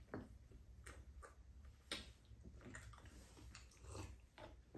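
Faint, irregular clicks and taps of spoons against ceramic bowls during a meal, the loudest about two seconds in.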